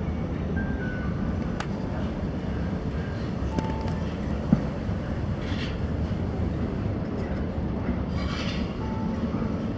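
Steady low rumble of a ferry's engines and ventilation, heard inside the ship's restaurant, with a few faint clinks and a sharp click about four and a half seconds in.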